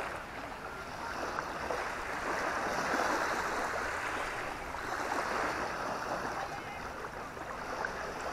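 Small waves washing onto a sandy shore, the rush of water swelling and fading every few seconds.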